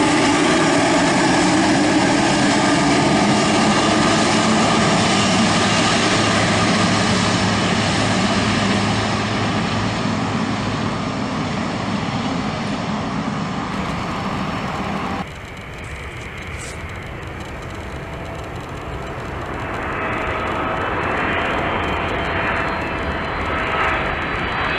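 Boeing 777 twin jet engines running loud and steady as the airliner rolls along the ground. About 15 seconds in, the sound cuts abruptly to a quieter jet with a thin whine, a 777 on final approach, which grows louder toward the end.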